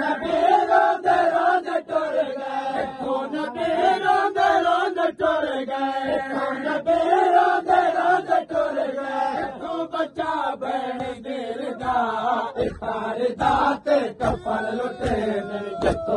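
A group of men chanting a Muharram noha (Shia lament) together, a sung refrain swelling and falling in long phrases. Sharp slaps of chest-beating (matam) keep time with it, growing stronger near the end.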